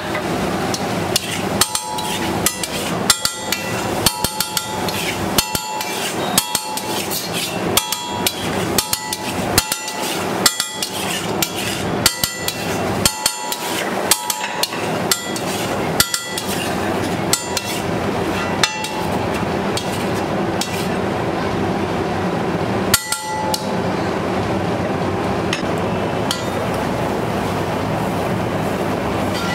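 Metal spatula clanking and scraping on a flat steel griddle: quick, irregular metallic strikes that ring briefly, about one or two a second, over a steady hiss. The strikes stop after about twenty seconds, with one more clank a few seconds later.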